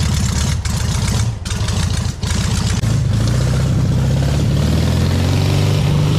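Homemade buggy's engine running as the buggy moves off, uneven at first, then pulling steadily with its pitch rising gradually from about halfway through as it accelerates.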